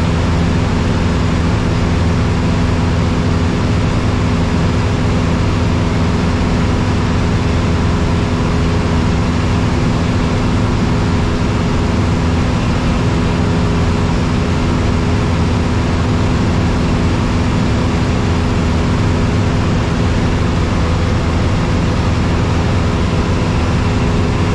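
Steady drone of a single-engine light aircraft's piston engine and propeller in cruise flight, heard inside the cockpit: an even, unchanging hum with several constant tones.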